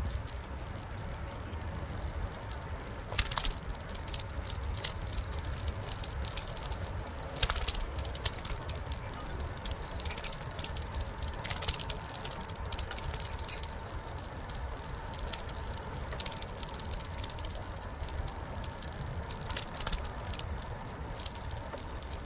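Bicycle riding on a paved path, heard from a handlebar-mounted camera: a steady low wind rumble on the microphone and tyre noise, with scattered sharp clicks and rattles as the bike goes over bumps and joints in the concrete.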